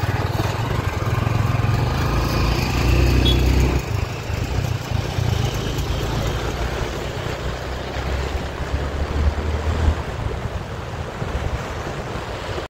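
Motorcycle engine running while riding, its low hum steady with small shifts in pitch, under a heavy rush of wind over the microphone.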